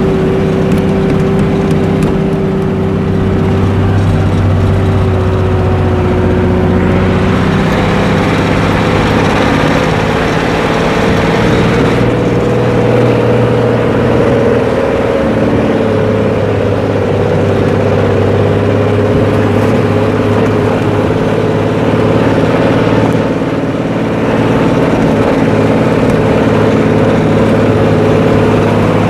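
Tuned engine with a loud exhaust running steadily and rumbling, its pitch stepping up slightly about a quarter of the way in and holding there.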